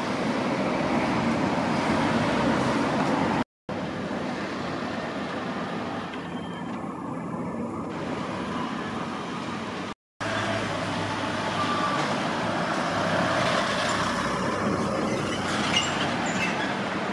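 Roadside traffic noise: steady sound of road vehicles passing along the street. It cuts out briefly twice, about three and a half seconds in and again about ten seconds in.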